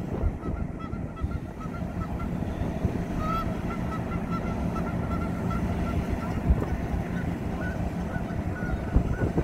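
A rapid series of short, high honking calls, several a second, over a steady low rumble.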